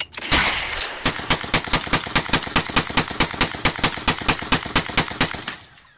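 A rifle firing: one shot right at the start, then from about a second in a long string of rapid, evenly spaced shots at about six a second, fading away near the end.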